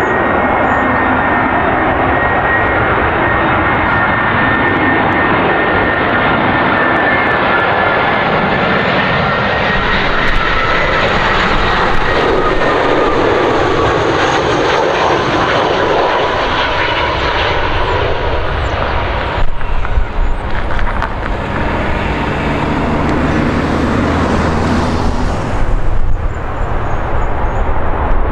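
Air Canada Rouge Airbus A319 on final approach with gear down: a steady jet engine rumble with a whine that slowly falls in pitch as the airliner passes close by. In the later part the sound turns into a lower, uneven rumble as the jet is on the runway after landing.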